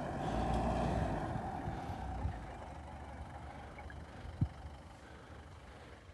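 Off-road 4x4 engine running as the vehicle ploughs through deep snow and pulls away, its sound steadily fading. One sharp low knock about four seconds in.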